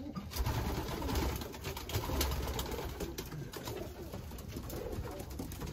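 Homing pigeons cooing softly in their loft, over a low rumble.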